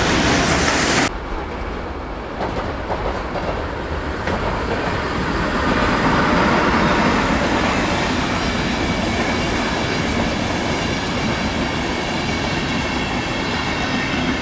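Freight train of tank wagons rolling past close by, its noise stopping abruptly about a second in as the last wagon clears. Then a RegioJet passenger train rolls past on a farther track with a steady rumble of wheels on rails.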